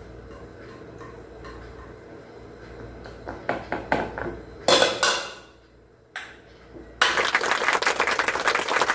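A utensil clicking and scraping against a plate and glass bowl, with one loud scrape about five seconds in. From about seven seconds, a steady clatter of a utensil stirring macaroni salad in the glass bowl.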